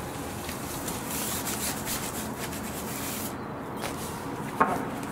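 Polyester fabric window seal rustling and rubbing as it is smoothed and pressed onto velcro strips along a window frame, with one sharp tap near the end.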